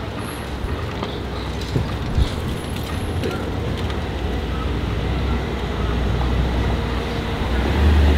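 Mercedes-AMG SL roadster's engine rumbling low as it rolls slowly along a city street, over traffic noise, getting louder near the end as the car comes close.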